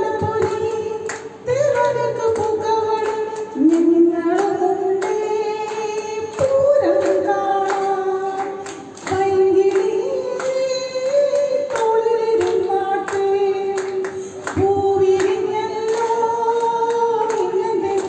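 Female voices singing a melodic song in phrases of about two to three seconds, over a steady tapping beat.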